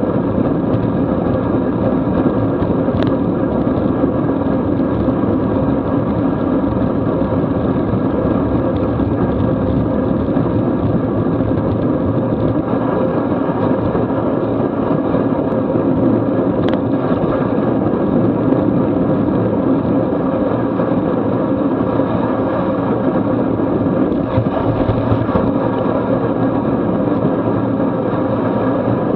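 Steady wind rush and tyre noise picked up by a camera on a racing bicycle moving at about 23 mph over wet asphalt. Two faint brief clicks, about three seconds in and again past halfway.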